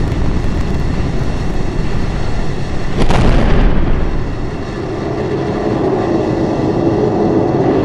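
Continuous rushing roar of Space Shuttle ascent as picked up by a camera on the external tank, with a sudden loud burst about three seconds in as the solid rocket boosters separate; the roar then carries on, steadier.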